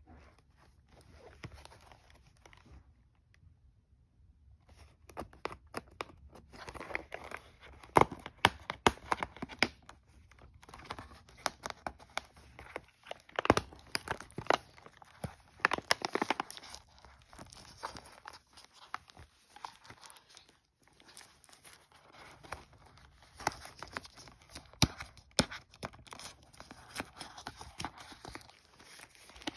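Clear plastic shrink-wrap crinkling and tearing as fingers pick and peel it off a boxed electric teeth cleaner: a run of irregular crackles and snaps starting about five seconds in, with brief lulls.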